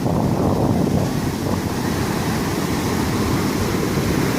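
Sea waves washing in, with wind buffeting the microphone: a steady, deep rush with no distinct breaks.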